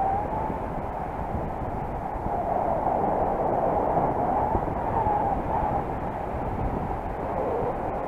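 Wind rushing over the microphone in paraglider flight: a steady noise with a wavering whistle that comes and goes.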